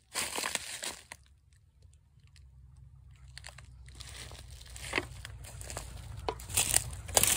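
Rustling and crackling of dry leaves and brush being pushed through. There is a short burst at the start, a quiet pause, then scattered crackles and snaps that grow busier toward the end, over a low rumble that rises underneath.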